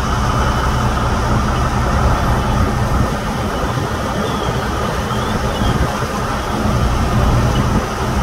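Fire engine's diesel engine running steadily close by, a continuous deep drone with a steady hiss above it.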